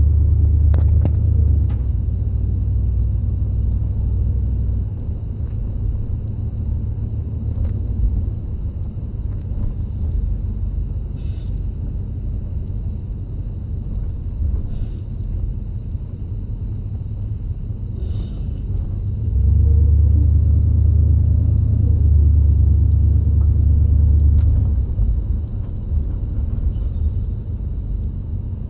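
1972 Chrysler Newport's V8 engine running with a steady low rumble, louder at the start and again for about five seconds two-thirds of the way through. Faint short high chirps come every few seconds over it.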